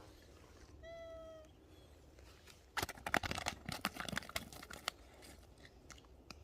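A cat meows once, briefly and at a steady pitch. About two seconds later comes a run of quick, sharp clicks and crackles lasting about two seconds.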